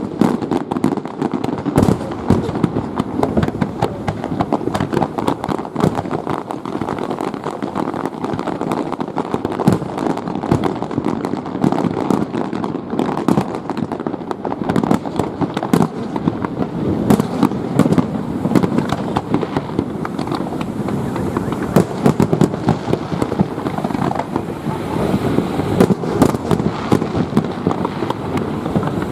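Fireworks display in a continuous rapid barrage: many bangs and crackles a second over a steady rumble of overlapping bursts.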